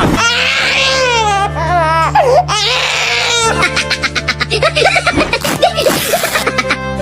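High-pitched wailing cries that waver and warble, breaking into quick choppy sobs near the end, over steady background music.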